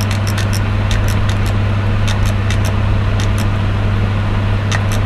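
A steady low hum with groups of short, sharp clicks, thickest near the end.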